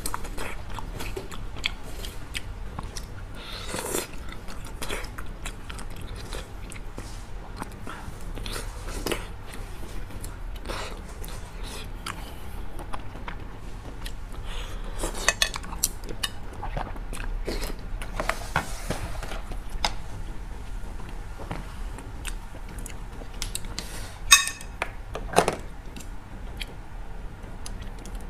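Close-miked chewing and biting on teriyaki chicken-skin skewers, with many small wet mouth sounds. Two sharp tableware clinks about four seconds before the end.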